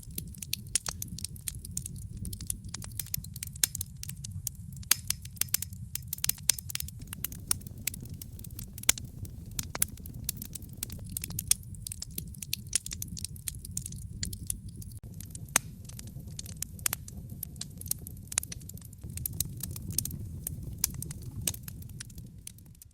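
Fire crackling in a fireplace: a dense, irregular run of sharp pops and snaps over a steady low rumble of the flames.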